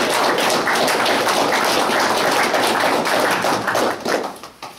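A small audience clapping in welcome, a dense patter of hand claps that dies away near the end.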